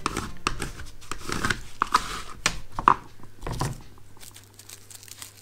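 Coarse sandpaper scratching and crinkling as it is rubbed over the lead came joints of a stained glass panel, roughing up the lead before soldering. Irregular scratchy strokes that die down after about four seconds.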